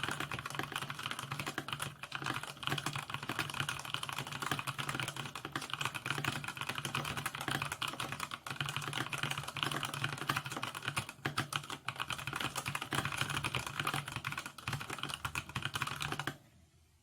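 Fast continuous typing on an AJAZZ AK680 hot-swap mechanical keyboard with Tea (brown) tactile switches: a rapid, dense clatter of keystrokes that stops abruptly near the end.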